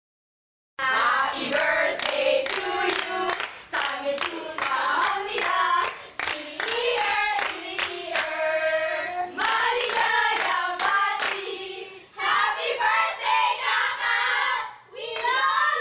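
A group of women singing and calling out together while clapping their hands, starting about a second in.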